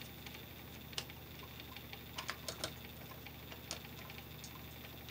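Screwdriver tightening the green ground screw on a light switch: scattered small sharp ticks and clicks of metal, a quick cluster of them about two seconds in, over a faint steady low hum.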